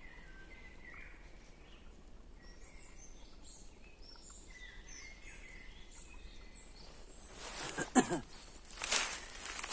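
Small songbirds chirping and singing in woodland. From about three-quarters of the way in, much louder noise bursts cover them: a rustle near 8 seconds and another about a second later.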